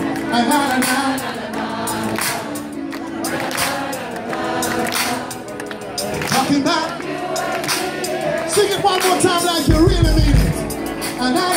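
Live reggae band playing, with many voices singing. A brief low rumble comes about ten seconds in.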